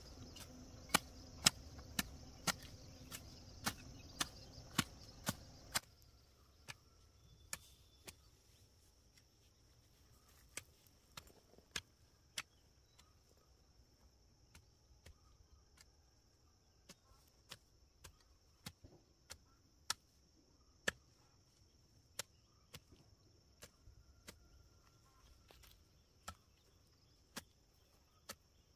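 Repeated sharp chopping strikes, about two a second for the first six seconds, then sparser and irregular, over a steady high-pitched insect drone.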